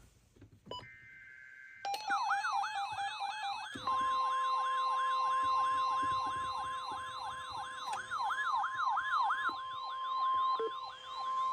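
Emergency Alert System tones on NOAA Weather Radio. About a second in comes a short burst of the shrill digital header data, which opens a flood warning. Then a siren-like tone sweeps up and down about three times a second over stepped beeps, and from about four seconds in the steady single-pitch weather-radio warning alarm tone joins it.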